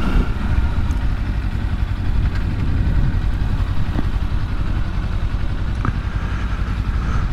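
A Kawasaki Versys-X 300's small parallel-twin engine idling steadily, a low even rumble.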